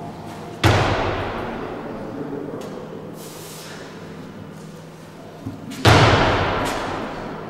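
Two loud impacts about five seconds apart, each ringing on in the large hall: a weightlifter's feet stamping down on the platform as he catches the barbell, first in the clean and then in the split jerk.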